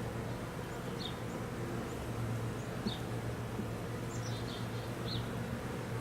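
Honeybees buzzing around an opened hive, a steady low hum. Short high chirps repeat about once a second over it.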